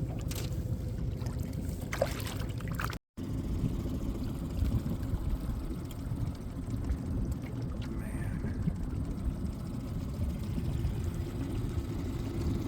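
Small aluminium boat underway: its Suzuki outboard motor running at a steady pitch, with wind and water rushing past the hull.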